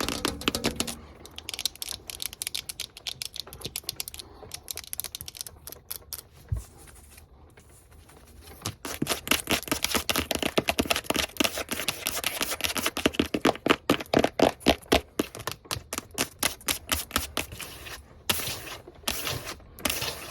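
Fast, aggressive long-fingernail tapping on hard surfaces, many quick taps a second. The tapping thins out and softens between about 4 and 8 seconds in, then comes back dense and louder.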